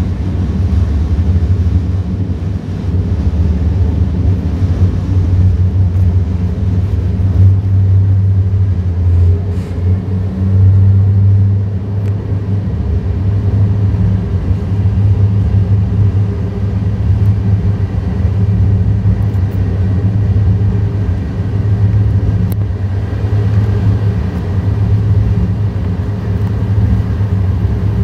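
Alstom Citadis Spirit light-rail train running at speed, heard from inside the car: a loud, steady low rumble and hum that swells a little from time to time.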